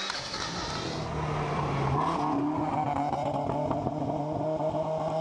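Rally car engine running at high revs, its note held and rising slightly as the car approaches and gets louder. A hiss in the first second.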